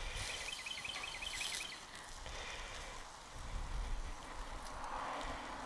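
NY strip steaks sizzling faintly on a hot charcoal grill grate as they are turned with tongs, with the sizzle growing louder near the end. Near the start a bird gives a quick trill of about eight short chirps.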